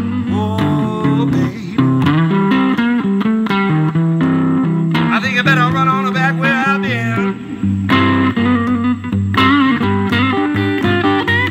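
Electric guitar lead on a Fender Telecaster playing a blues solo, with bent and wavering notes over bass notes that move underneath.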